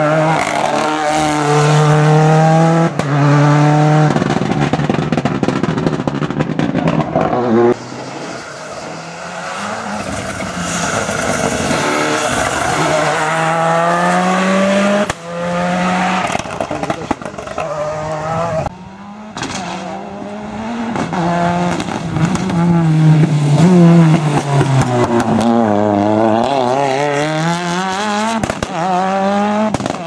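Ford Escort WRC and RS Cosworth rally cars' turbocharged four-cylinder engines revving hard as the cars accelerate past one after another. Each run climbs in pitch and drops at gear changes, and the runs are joined by abrupt cuts.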